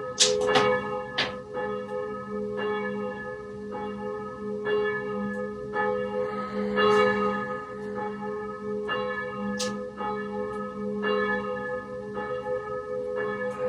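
Church bells ringing, about one stroke a second, each stroke ringing on under the next.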